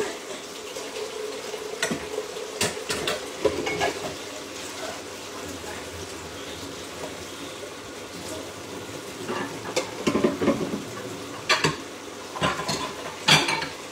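A pan of sardines and a pot of tomato sauce cooking on a stovetop, giving a steady hiss. Scattered sharp clinks and knocks of dishes and utensils come through it, bunched together in the second half.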